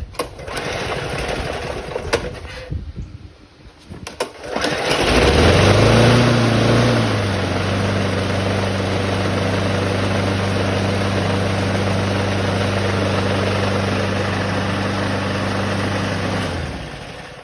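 Briggs & Stratton Quantum 5 HP single-cylinder engine on a Snapper walk-behind mower, fitted with a primer-style carburetor and a fixed throttle. After a few seconds of rattling it catches about five seconds in, revs up briefly and settles to a steady run. It shuts off about a second before the end and winds down quickly.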